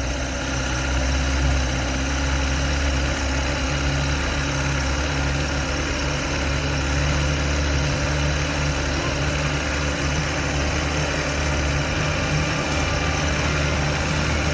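Chrysler 90 hp two-stroke outboard motor running steadily on a little throttle, just above idle, freshly installed and not yet warm.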